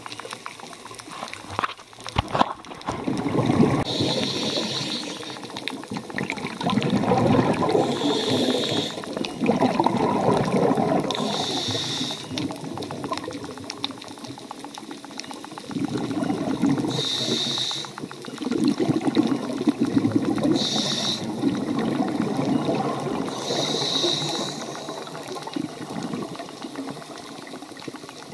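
Scuba diver breathing through a regulator underwater: short hissing inhalations through the demand valve alternate with longer bursts of exhaled bubbles, about one breath every three to four seconds.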